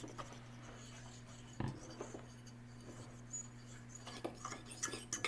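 Forks stirring slime in bowls: quiet scraping with a few light clicks and a single soft knock, over a steady low hum.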